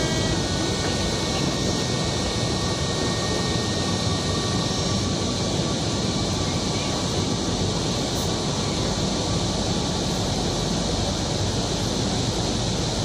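Steady interior ambience of a Kochi Metro train car standing at a station: an even rushing hum with no distinct events. A faint high tone fades out about ten seconds in.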